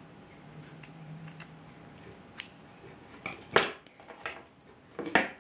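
Scissors snipping through the inner core strands of paracord: a series of short, sharp snips and clicks, faint at first, the loudest about three and a half seconds in.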